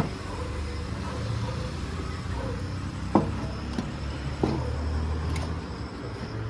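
A few sharp knocks and clinks of hand tools working on the engine head, over a low steady rumble.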